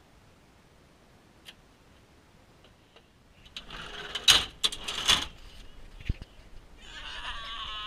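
Near silence for about three seconds, then a run of knocks, clicks and rattles as the camera is handled inside the vehicle's cab, the loudest about four seconds in. Near the end a wavering, drawn-out voice-like sound begins.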